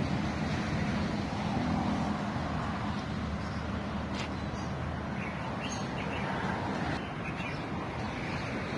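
Steady outdoor background noise with a low rumble, and a few faint bird chirps.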